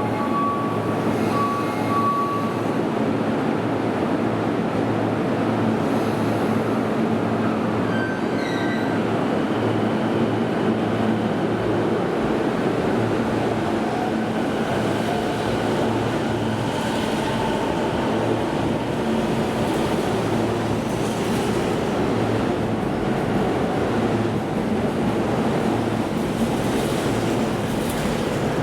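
Toei Shinjuku Line train running alongside the platform, a steady rumble of wheels and motors with faint high wheel squeals, and a few short beeps near the start.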